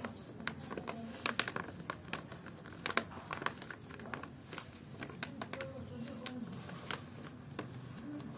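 Irregular crinkling, scraping and sharp clicks of tile grout and its packaging being handled and mixed by hand.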